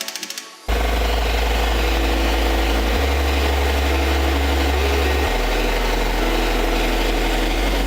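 Electronic background music: a build-up drops out, and a bit under a second in a heavy drop begins with a deep sustained bass that changes note every couple of seconds.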